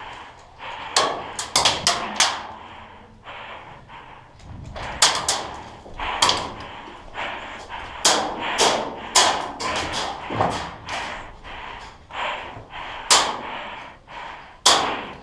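Airsoft guns firing: sharp cracks as single shots and short strings of two or three, at irregular intervals, with several near-simultaneous at times.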